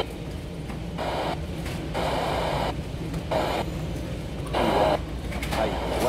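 Timex T618T clock radio's FM tuner stepping up between stations: its speaker breaks into short stretches of noise and quieter gaps, changing about once a second, with no steady station heard.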